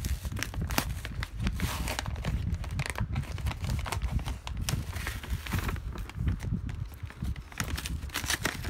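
Paper shopping bag crinkling and rustling in irregular crackles as hands open it and reach inside.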